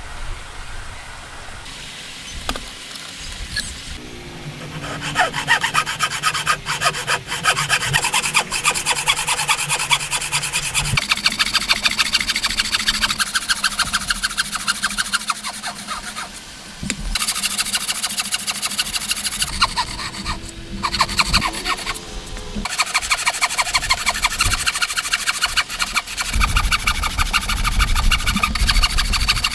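Hand-powered wooden frame saw (bow saw) cutting into a thick block of timber in quick, rasping back-and-forth strokes. The sawing starts about five seconds in and pauses briefly twice.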